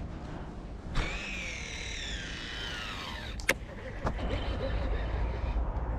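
Okuma Citrix baitcasting reel's spool spinning out during a cast. A sharp click starts a high whine that falls in pitch for about two seconds as the spool slows, and a second sharp click comes about half a second after it stops. A low rumble builds near the end.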